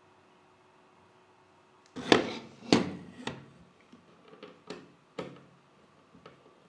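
Hard computer parts handled on a tabletop: two loud knocks about two seconds in, then a series of lighter taps and clicks as the all-in-one liquid cooler's radiator and pump block are moved over the motherboard.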